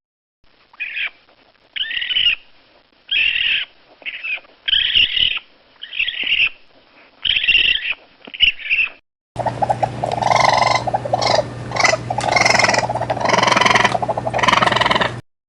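Raccoon calls: a series of about eight short, high-pitched cries roughly a second apart. About nine seconds in, a different recording begins, with continuous screeching and chattering over a steady low hum.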